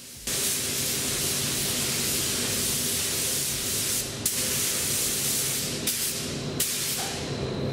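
Gravity-feed mini spray gun hissing steadily as it sprays a black pearl base coat, with a few short breaks in the spray.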